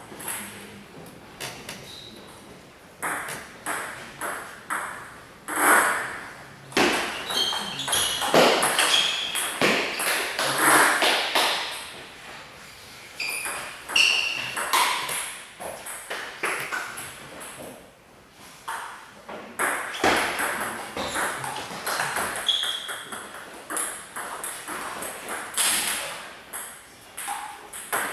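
Table tennis balls clicking sharply off bats and tables in rallies, many quick irregular knocks, some overlapping from more than one table.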